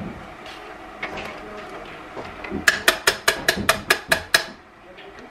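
A utensil tapped quickly against the rim of a slow cooker's crock, about nine sharp ringing clinks in under two seconds, with softer stirring and handling noise before them.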